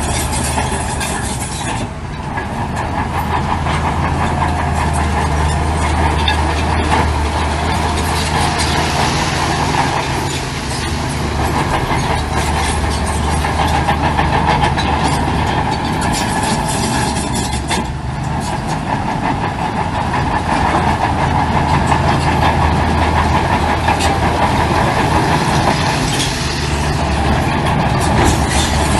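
Heavy diesel construction machinery working: a steady low engine drone with continuous metallic clanking over it. The engine eases off briefly and builds again a few times.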